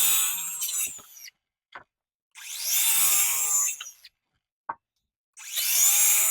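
Power saw cutting the end off rough-sawn poplar boards in short bursts of about two seconds, each with a high whine. One burst ends about a second in, another runs through the middle, and a third starts near the end.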